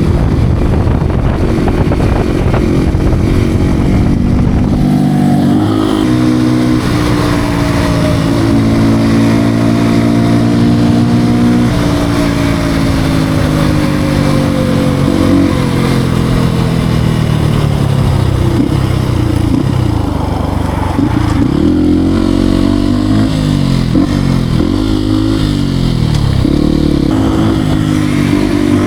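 Beta RR 125 R supermoto's single-cylinder engine being ridden: it accelerates with the pitch climbing and dropping back at each gear change, falls in pitch for several seconds as it slows, then revs up and down quickly several times near the end.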